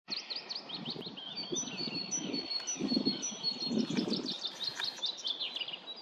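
Songbirds chirping and whistling, a busy, overlapping mix of short calls and trills with a short high whistle repeated about twice a second in the middle, and a few low rumbles underneath.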